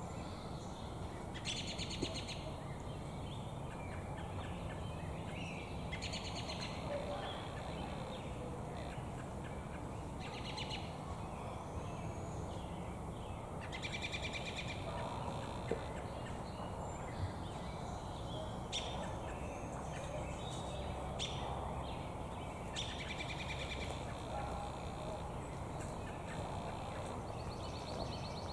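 American robin calling with its beak full of damselflies: short bursts of quick high chirps every few seconds, coming closer together in the second half. A steady low background rumble runs underneath.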